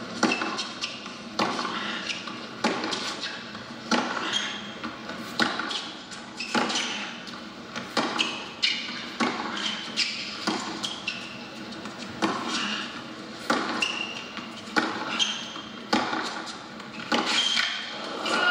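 Tennis ball struck back and forth by rackets in a long rally on a hard court, a sharp pop about once every second and a quarter, heard through a television's speaker.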